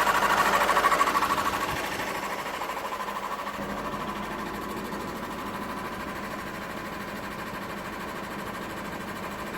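VW 2.0 TDI (CFHD) diesel engine running with a rhythmic, tractor-like clatter, loud at first and easing off about two seconds in to a quieter, even pulsing. The clatter is a sporadic engine noise whose cause is unknown.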